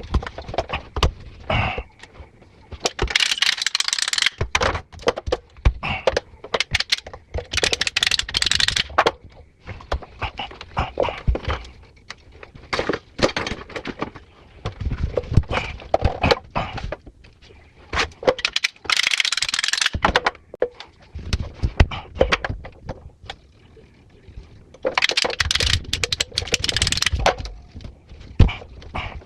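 Hands working with tools and metal hardware: many clicks, knocks and clatters, with four rough scraping noises lasting a second or two each.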